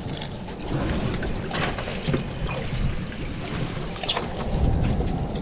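Wind buffeting the microphone and water slapping against a small fishing boat's hull, with a few light knocks of gear being handled on deck.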